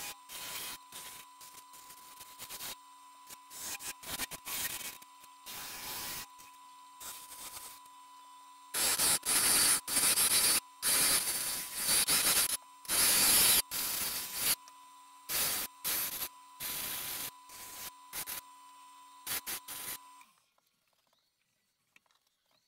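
Turning tool cutting a spinning sapele workpiece on a wood lathe: repeated hissing, scraping cuts, loudest a little before the middle, over the steady hum of the lathe motor. The hum stops near the end as the lathe is switched off.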